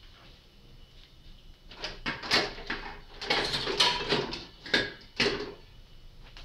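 Off-camera clattering: a run of sharp knocks, scrapes and rattles from about two to five and a half seconds in, with one or two brief metallic rings.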